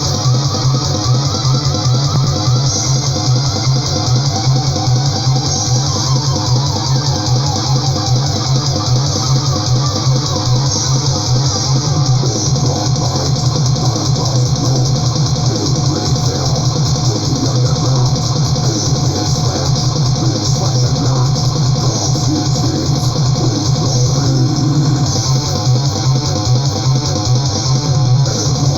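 Death/thrash metal recording: distorted electric guitars and bass over fast, pounding drums.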